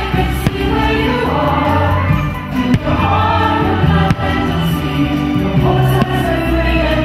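Fireworks-show soundtrack: a choir singing with orchestra, loud and continuous, with a few sharp firework bangs cutting through.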